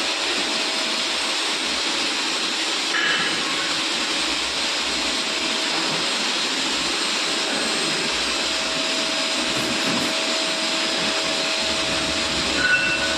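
A CNC machine running: a steady hiss with a faint steady hum underneath, unchanging in level.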